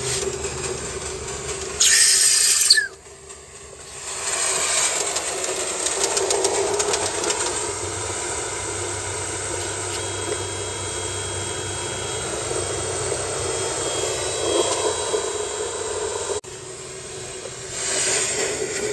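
Aster gauge 1 live-steam model of a DB class 01 locomotive running, with a steady steam hiss and mechanical running noise. A loud burst of hissing about two seconds in lasts about a second.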